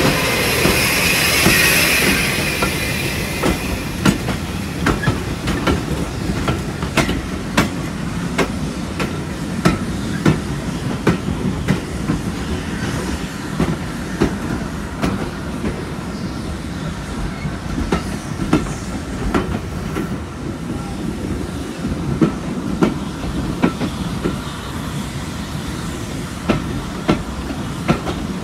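Railway coach wheels running over the track: a steady low rumble with irregular clicks and clacks from the rail joints. For the first couple of seconds a louder rushing hiss sits over it, then fades.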